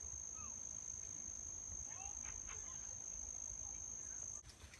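An insect's steady, unbroken high-pitched trill, such as a cricket's, which cuts off suddenly near the end, with a few faint short calls now and then beneath it.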